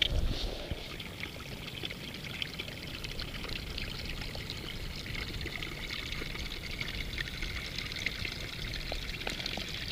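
Water trickling steadily over stones in a small hill stream, a constant splashing hiss flecked with little drips.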